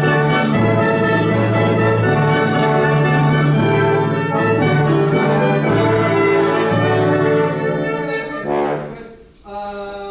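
An ensemble of brass and wind instruments plays a passage of loud, sustained chords with trombone and trumpet to the fore; the music breaks off about eight seconds in.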